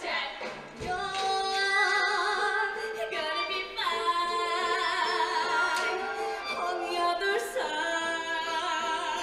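Show choir singing sustained chords; the chord changes a few times.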